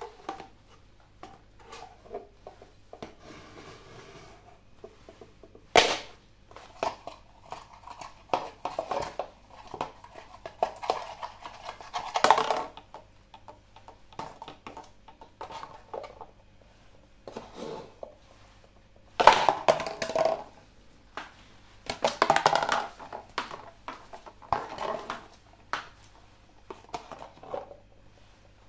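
Cardboard ice cream cup being crushed and crumpled under a steel-tipped stiletto heel on a tiled floor, in several irregular bouts of crackling and creasing with sharp knocks from the heel.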